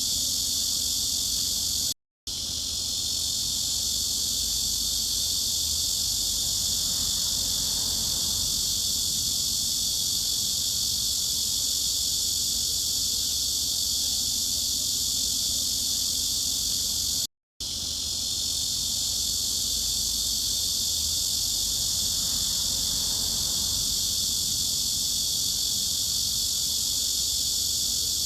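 Cicada chorus as one steady, high-pitched drone, cut twice by a split-second silence about fifteen seconds apart where the looped recording restarts.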